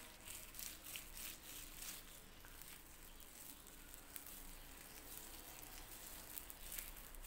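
Faint wet, sticky crackling and squelching of hands working a slimy flaxseed gel mask through long wet hair, in quick irregular crackles.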